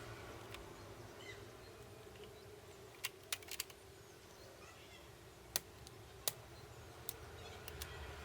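Scattered sharp, light clicks and taps of small hard parts being handled, about ten in all, with a short cluster of four around three seconds in, over a faint steady hum.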